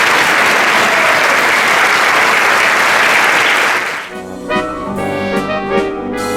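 Audience clapping steadily, which stops about four seconds in as band music with brass starts playing.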